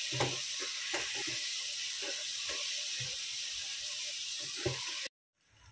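Onions and ginger-garlic paste sizzling in hot oil and ghee in a pot, fried until the paste loses its raw smell, while a silicone spoon stirs and knocks against the pot now and then. The sizzling cuts off abruptly near the end.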